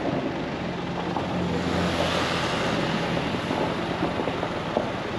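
Mitsubishi Nativa diesel SUV driving on a dirt road: a steady engine drone with road and tyre noise.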